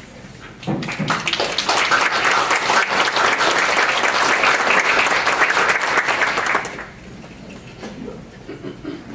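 Audience applauding, starting about a second in and dying away after some six seconds.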